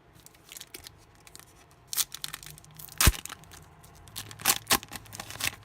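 Foil wrapper of a trading-card pack being crinkled and torn open, in irregular sharp crackles and snaps; the loudest snap comes about three seconds in.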